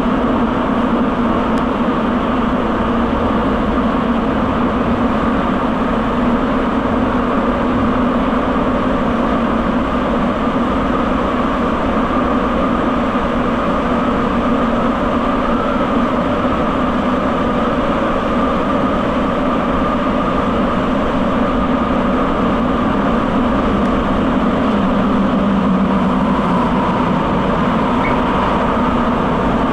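Rubber-tyred subway train running steadily through a tunnel, heard from inside the car: an even rolling rumble with a steady hum over it.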